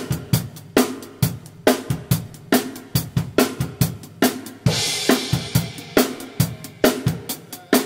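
Acoustic drum kit with Sabian HHX cymbals playing a steady pop groove with no other instruments: bass drum, a snare backbeat about every 0.9 s, and hi-hat. A crash cymbal is struck a little past halfway and rings for about a second.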